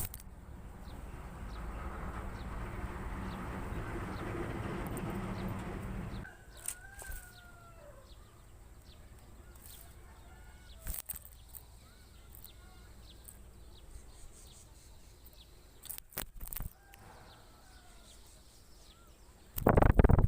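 Outdoor bird sounds: domestic chickens with a rooster crowing, a few short gliding chirps from small birds, and a loud burst of noise near the end.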